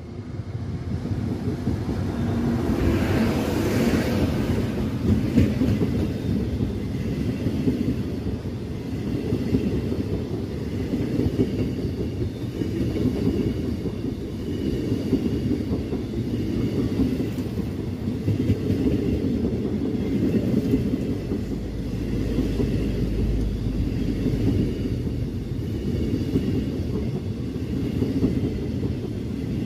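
A pair of E402B electric locomotives passing at speed through a station, with a surge of noise about two seconds in as they go by. The long, steady rumble of the Venice-Simplon Orient Express's vintage coaches rolling past on the rails follows.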